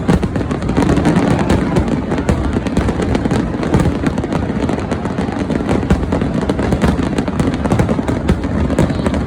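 Fireworks finale: rapid, overlapping aerial shell bursts and crackling with no pause, over a continuous low rumble of booms.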